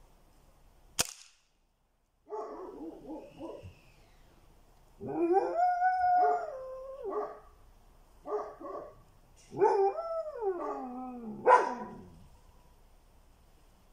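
A dog barking and howling in several bouts. Two sharp cracks from the air-rifle shooting come about a second in and near the end, the second the loudest sound.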